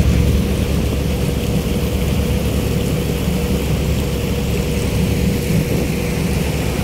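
A fishing boat's engine running steadily while under way: a low drone with a steady hum, over the even rush of the boat's wake and the passing water.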